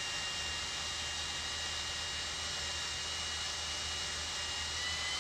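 Cordless drill with a cobalt bit boring through a steel trailer flange, its motor running steadily under load with a thin high whine; the whine steps up slightly in pitch near the end.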